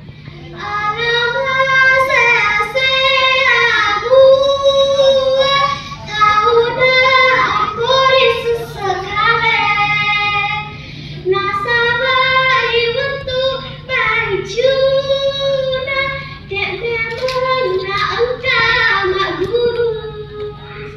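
A young girl singing solo, with long held notes and short breaks between phrases, over a steady low hum.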